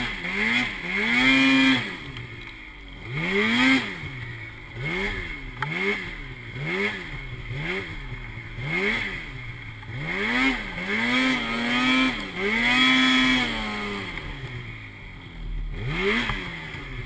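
Snowmobile engine revved in quick repeated throttle blips, its pitch rising and falling each time, a few held longer, then a short pause and one last rev near the end. The sled is bogged in deep snow.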